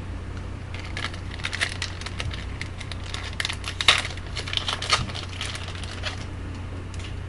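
Trading card pack wrapper crinkling as it is torn open and cards being handled, a run of scratchy rustles and clicks from about a second in until about six seconds, over a low steady hum.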